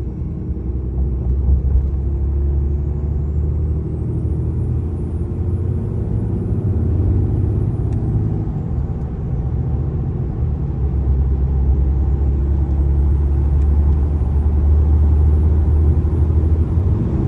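Ram 2500's 6.7 Cummins turbo diesel pulling hard while accelerating, with its intake and turbo heard through an S&B cold air intake. A high turbo whistle climbs and then falls away twice over a deep engine rumble, as the truck pulls through the gears.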